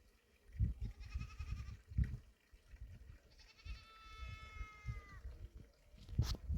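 Goat bleating twice: a short wavering bleat about a second in, then a longer, steadier bleat that drops in pitch as it ends. Low rumbling thumps sit underneath, and a sharp click comes near the end.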